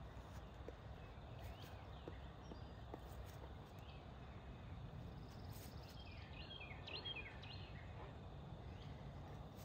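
Faint outdoor ambience: a low steady rumble, with a bird giving a short run of quick chirps about six seconds in.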